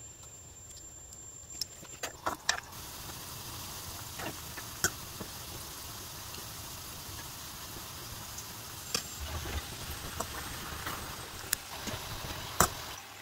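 Samosas deep-frying in hot oil in a metal kadai: a steady sizzle that grows louder about three seconds in. Sharp clinks of a metal spoon striking the pan come now and then as the samosas are turned, the loudest near the end.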